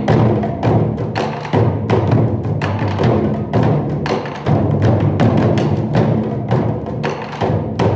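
Percussion-driven music: quick, regular drum strikes over a sustained low bass line.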